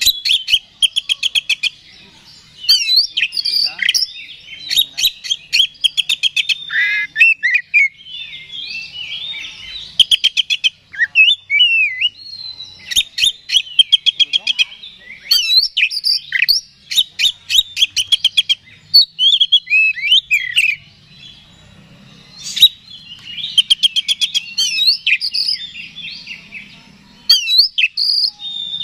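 Oriental magpie-robin (kacer) singing a loud, varied song: fast trills of rapidly repeated notes alternating with whistled slurs and glides, phrase after phrase with brief pauses between.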